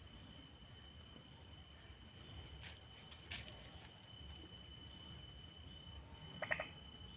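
Night insect chorus of crickets: a steady high trilling with short high chirps repeating every second or so. A brief pitched call comes near the end.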